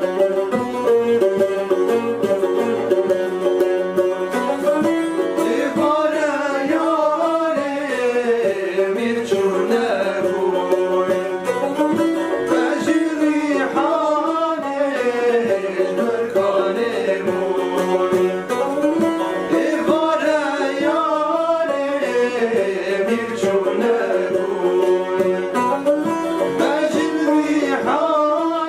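Kurdish folk song played on a banjo and a long-necked saz (bağlama), the strings plucked in a steady pattern, with a man's singing coming in about five seconds in, in long wavering phrases.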